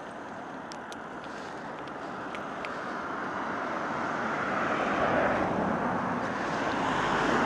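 Road traffic noise: a steady hiss of passing vehicles that builds, swelling louder about five seconds in and again near the end as vehicles go by.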